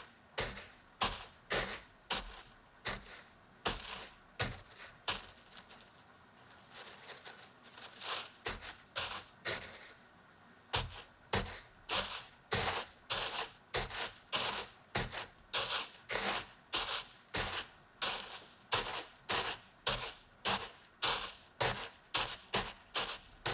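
Foley footsteps in snow: coarse cooking salt in a large container crunched by a kitchen beater pressed into it, step after step at a walking pace, about two steps a second. The steps pause briefly twice, then carry on steadily.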